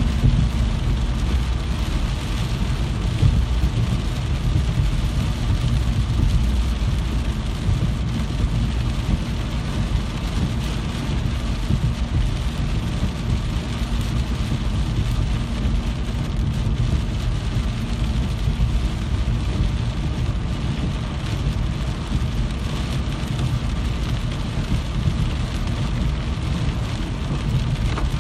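Steady heavy rainfall, an even hiss of drops on surfaces with a low rumble underneath.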